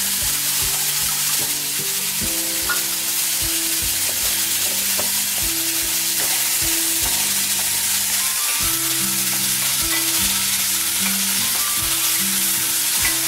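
Sliced carrots, onions and tomato frying in oil in an aluminium kadai: a steady sizzle, with a wooden spatula knocking and scraping the pan now and then. Soft background music with low notes runs underneath.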